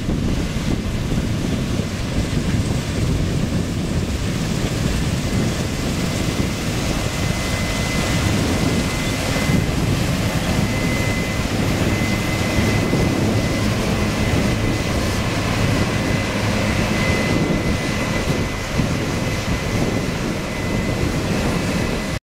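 Case IH AFX8010 combine harvester running steadily while harvesting field peas: a deep, continuous rumble with a thin steady whine over it.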